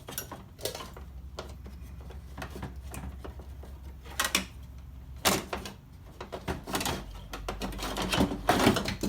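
Scattered clicks and clunks of a metal power window regulator being handled and worked into place inside a car door, with sharper knocks about four and five seconds in and a run of clatter near the end.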